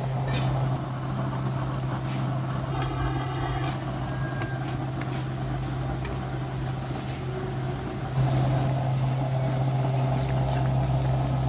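Gas burner under a wok of boiling noodle soup, running with a steady low hum that gets louder about eight seconds in. A metal spatula clicks and scrapes against the wok as the soup is stirred.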